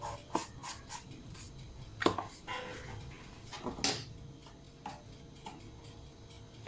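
Light clicks and knocks of a spoon and small containers being handled while salt is added to flour, with sharper knocks about two and four seconds in.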